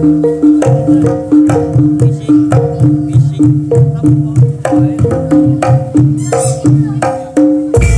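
Javanese gamelan music playing at a barongan performance: a quick, repeating pattern of struck metal gong-chime notes over a drum beat.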